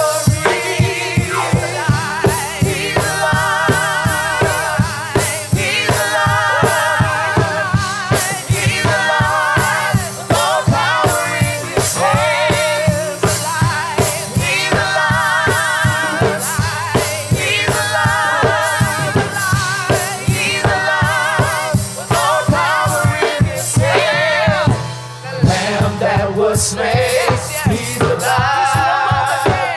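Gospel praise music: a worship team singing with vibrato over a band with bass and a steady drum beat.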